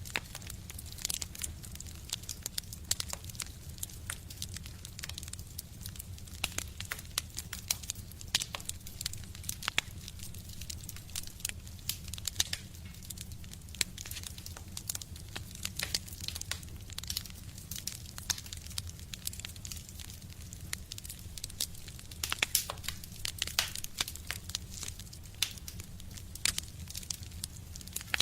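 Wood fire burning in a stove, crackling with frequent irregular snaps and pops over a steady low rumble of the flames.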